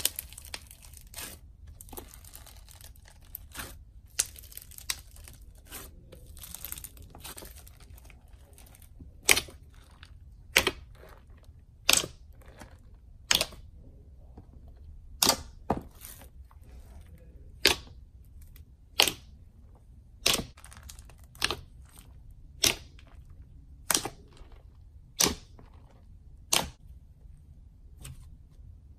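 Hands playing with slime: a dense crackling of foam-bead slime (floam) being pressed for the first several seconds, then a regular series of sharp pops a little over a second apart as fingers poke into and squeeze a thick blue slime.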